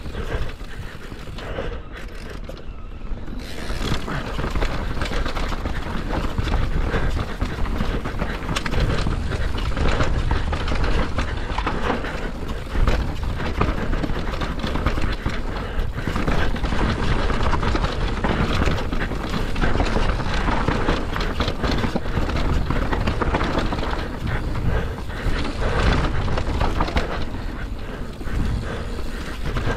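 Mountain bike descending a rough dirt trail: wind rumbling on the microphone, with tyres rolling and the bike rattling and knocking over roots and rocks.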